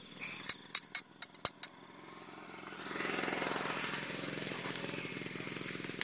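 About six sharp metallic clicks and rattles in a second and a half as a sprung rusty metal rat trap is picked up by hand. Then the steady hum of a small engine swells in about two and a half seconds in and keeps running.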